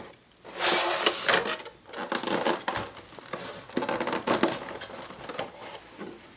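Stiff clear plastic packaging tray and cardboard box crinkling and scraping as the box is opened and the tray is slid out and handled; a long loud scrape in the first two seconds, then irregular rustles and clicks.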